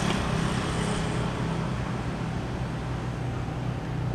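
A vehicle engine running steadily, with road and wind noise, heard from a moving vehicle.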